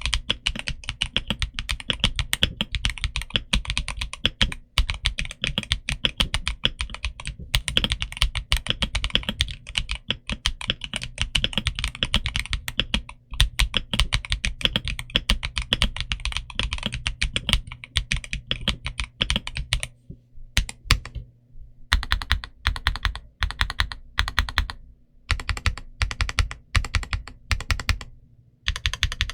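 Redragon K709 65% mechanical keyboard being typed on: fast, continuous keystrokes for the first two-thirds, then shorter runs of keys with brief pauses between them.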